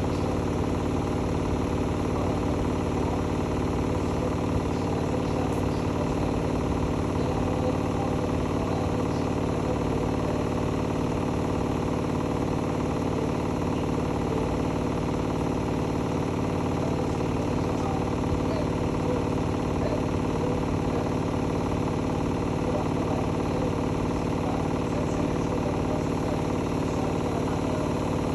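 Hotpoint-Ariston Aqualtis AQXGF 149 S washing machine running, a steady machine hum that holds without pause or change in pitch.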